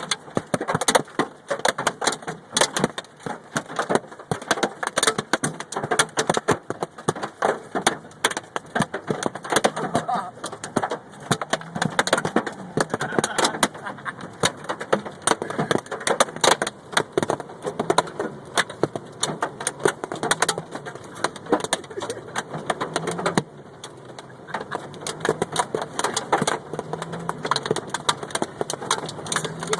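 Hailstones pelting a Mazda Miata in a dense, unbroken clatter of rapid hits.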